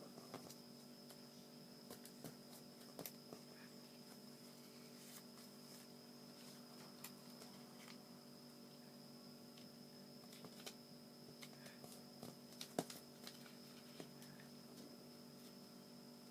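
Quiet paper handling: faint scattered clicks and crinkles of origami paper being folded and creased, one tick a little louder near the end, over a steady electrical hum.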